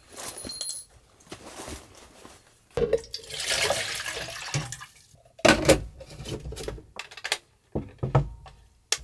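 Water poured into a humidifier's clear plastic water tank for about two seconds. Then come a few hard knocks and several clicks as the tank is handled and fitted back in place.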